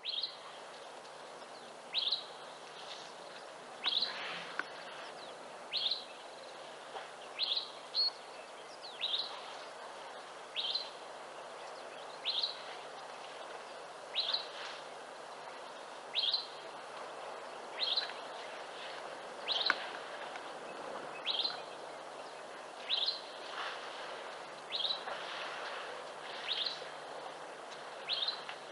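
A bird repeating one short, high call over and over, about every one and a half to two seconds, over a steady background hiss.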